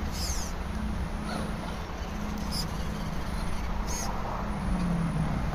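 RC crawler truck's electric motor and gear drivetrain whining as it creeps up a wooden ramp, the whine growing stronger near the end as it pulls onto the platform, with a few short high squeaks.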